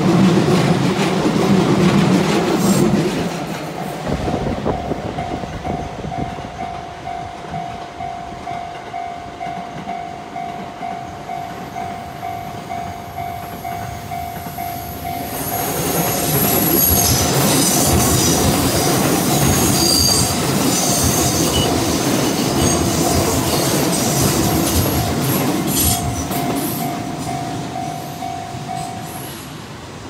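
Shin-Keisei 8800 series electric train rumbling past close by for the first three seconds. Then the level-crossing bell rings on, a steady repeating ding. From about halfway, a second train approaches on the curve and grows louder, with wheel squeal, before fading near the end.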